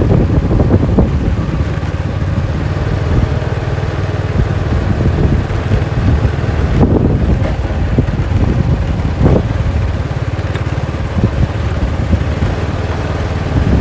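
Honda motor scooter engine running steadily while riding slowly, with a low rumble and wind buffeting the microphone.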